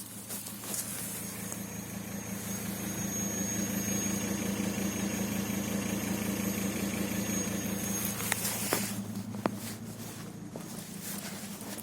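A thin, high-pitched whistle held steady over the low hum of a running engine; the whistle stops about eight seconds in, and a few sharp clicks follow.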